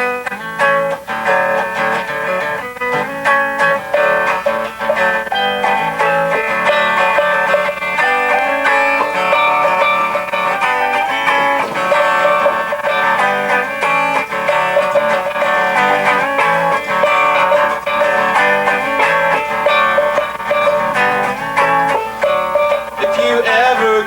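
Music from a plucked guitar playing a steady, picked tune.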